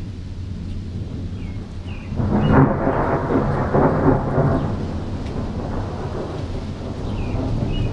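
Thunder rumbling: a steady low rumble that swells into a louder, rolling peal about two seconds in, then fades over the next few seconds.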